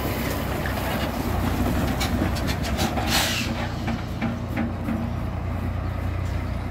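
Scania truck's diesel engine running with a steady low rumble as the truck and its cargo trailer pull away. Rattling clicks come from about two to four seconds in, with a short hiss about three seconds in.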